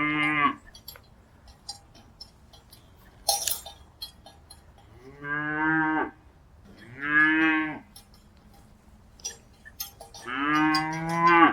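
Cattle mooing: four short moos, one ending just after the start, two in the middle and a longer one near the end. Short clinks and ticks fall between the moos, the loudest about three seconds in.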